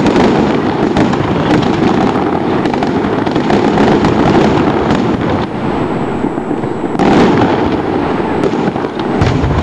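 Aerial fireworks bursting overhead: a dense, continuous run of crackling pops and bangs, with a louder burst about seven seconds in.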